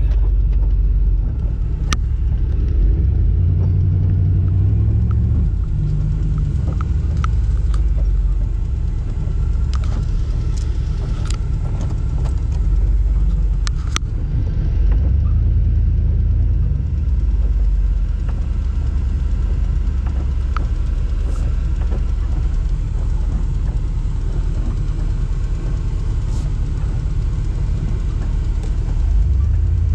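Vehicle engine running at low speed, a steady low rumble heard from inside the cab, its pitch rising briefly a few seconds in, with a few light clicks.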